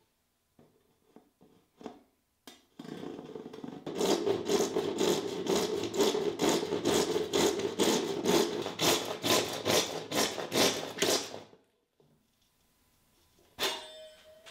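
A few light taps on a wooden dowel peg, then a fine-toothed hand saw cutting into the dowel in quick, even strokes for about eight seconds. Near the end comes a single sharp knock with a short ring.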